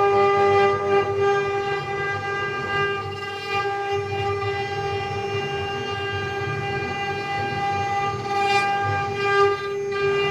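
Spindle motor of a mini CNC wood-carving machine whining at one steady pitch as it carves wood, with a lower rumble underneath.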